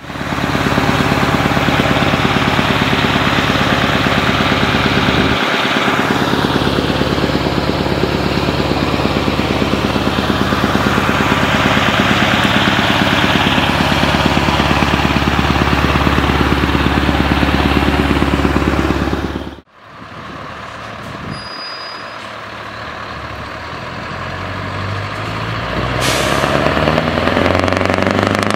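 Scania R-series V8 diesel truck engine running through loud exhaust pipes, a loud steady rumble for most of the time. After a sudden cut it is quieter, then a short hiss, and near the end the engine note rises as the truck pulls away.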